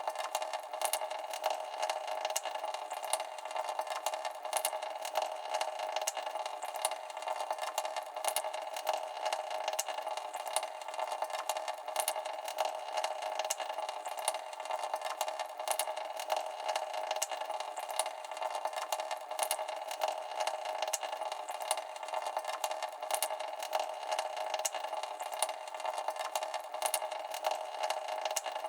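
Faucet dripping fast, a quick irregular run of short drip clicks, several a second, over a steady background noise.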